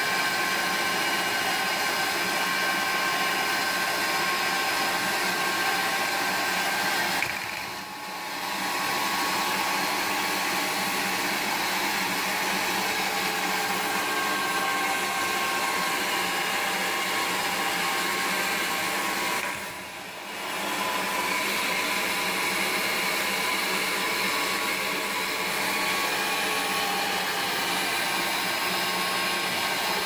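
Tefal HV8 1800-watt electric meat grinder running steadily with a sausage-stuffing nozzle, pushing spiced minced meat into the sucuk casing. Twice, about eight seconds in and again about twenty seconds in, the motor sound briefly drops away and comes back.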